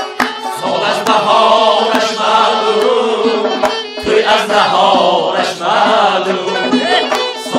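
Men singing a song together to traditional instrumental accompaniment, with sharp percussive strikes at intervals.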